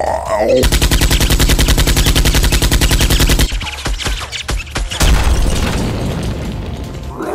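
Rapid automatic gunfire, about ten shots a second for roughly three seconds, then a few scattered single shots and a loud blast about five seconds in that slowly dies away.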